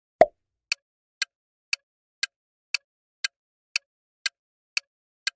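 One louder sound-effect hit just after the start, then a quiz countdown timer's clock tick sound effect, sharp even ticks two a second.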